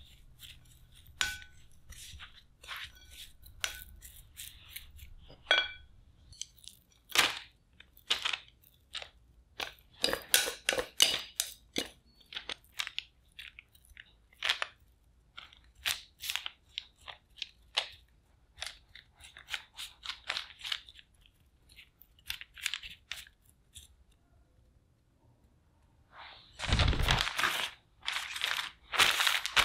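Chopsticks tapping and scraping as they spread shredded potato over parchment paper: a run of light, irregular clicks and rustles. Near the end, the parchment paper crackles loudly as hands press a sheet flat over the potato.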